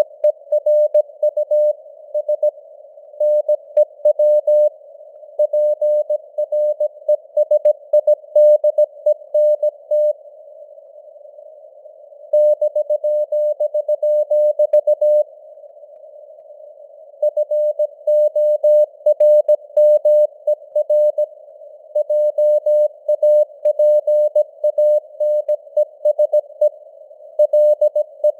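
Morse code (CW) at 17 words per minute: a single steady tone keyed on and off in dots and dashes over a narrow band of simulated radio hiss. The keying stops twice for about two seconds, about ten and fifteen seconds in.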